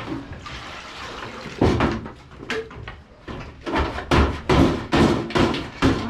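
Sheep feeding and jostling at a galvanised metal feed trough: a rushing rustle at first, then a run of irregular knocks and rustles, coming thicker near the end.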